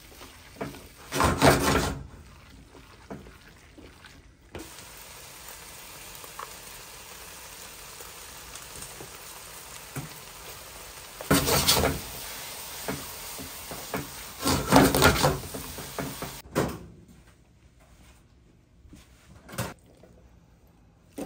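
Bungeoppang batter sizzling in fish-shaped griddle moulds, a steady hiss, with three short louder bursts about a second in, around eleven seconds and around fifteen seconds.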